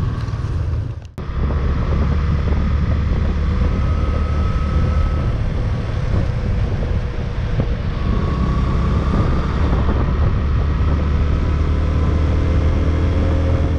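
Motorcycle engine running at riding speed, a steady low hum under rushing wind noise on a handlebar-mounted microphone. The sound drops out briefly about a second in, then carries on steadily.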